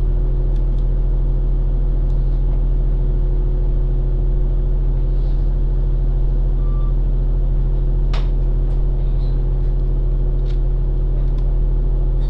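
2010 Orion VII NG city bus idling at a stop, heard from inside the cabin as a steady low drone. A brief faint beep sounds near the middle and a sharp click about eight seconds in.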